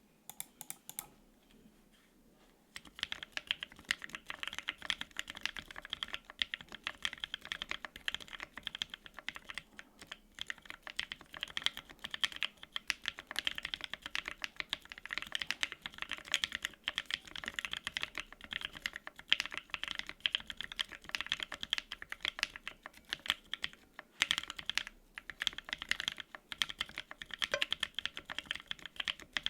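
Typing on a Bear 65% Ergo gasket-mount mechanical keyboard with lubed Tangerine 62g linear switches, a polycarbonate plate, no foam, and GMK double-shot ABS keycaps. A few keystrokes come at the very start, then a short pause, then continuous fast typing from about three seconds in.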